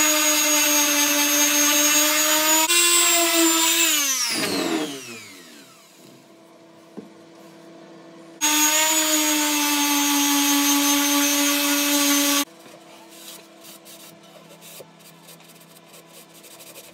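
Corded electric orbital sander running on a pine box: a steady motor whine that winds down with falling pitch a few seconds in, then a second run of about four seconds that starts and stops abruptly. It is sanding back glue-filled gaps in the joints.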